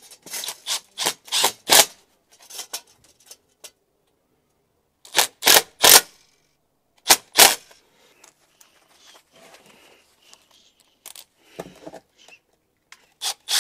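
Sharp metallic clicks and knocks in a few short clusters as a steel mounting bracket is screwed to a brick wall with a cordless drill/driver.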